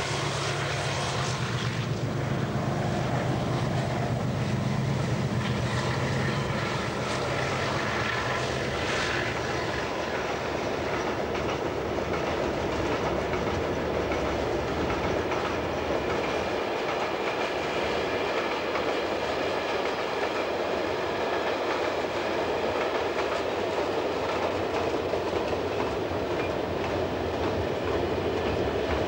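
Container freight train's wagons rolling past on the rails: steady rumble and clatter of wheels. A low drone fades out over the first ten seconds.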